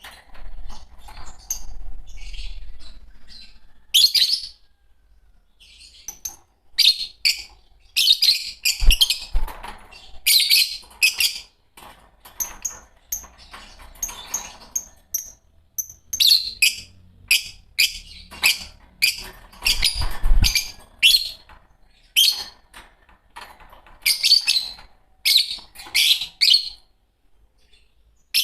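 A pair of green Fischer's lovebirds chirping: sharp, high calls in quick runs with short pauses between them.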